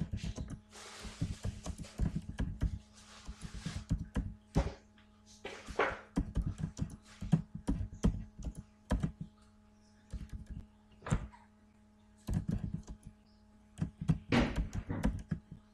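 Irregular thunks and clicks close to the microphone, like things being handled on a desk at a computer, over a steady low electrical hum. A soft rustling hiss runs through the first few seconds.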